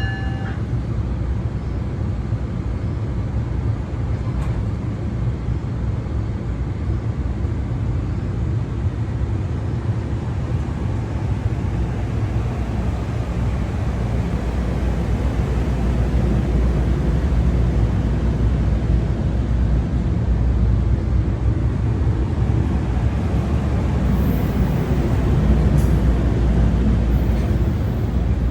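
Low, steady rumble of a New Jersey Transit train, growing louder about halfway through. A brief high tone sounds right at the start.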